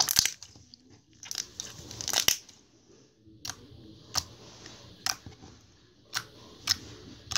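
Slime being squeezed and poked by hand, making sharp pops and clicks about once a second, with soft squishing between them.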